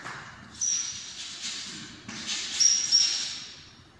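Chalk writing on a blackboard: a series of scratchy strokes, several with a thin high squeak, the loudest in the second half.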